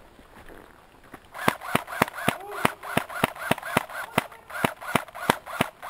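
Airsoft MAC-10 replica firing a rapid string of semi-automatic shots, about four to five a second, each a sharp crack with a short ringing note after it, starting about a second in.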